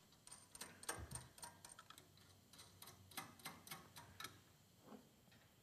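Arbor nut being threaded by hand onto a table saw arbor against a stacked dado blade set: faint, irregular light metallic ticks, several a second, fading out near the end.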